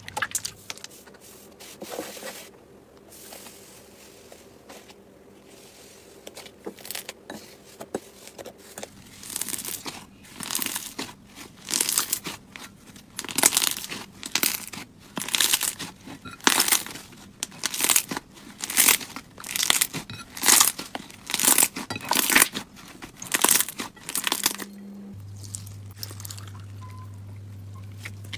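Slime being squeezed and pressed by hand, crackling and squishing, faint at first, then in a steady rhythm of squishes about every two-thirds of a second that stops a few seconds before the end.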